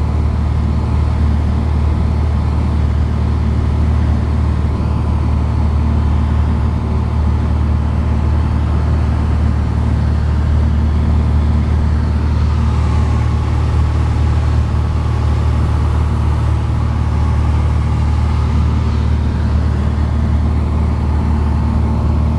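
Piper Dakota's single six-cylinder Lycoming O-540 piston engine and propeller droning steadily in flight, heard from inside the cabin.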